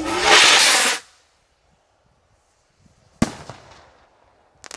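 Firework rocket fired from a homemade drain-pipe launcher: a loud rushing whoosh that cuts off sharply about a second in, then, after a near-silent pause, a single sharp bang a little past three seconds and a quick burst of crackling bangs near the end.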